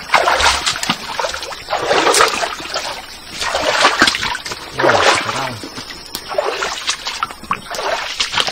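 Rubber boots wading through a shallow stream, a splash of water with each step, over and over.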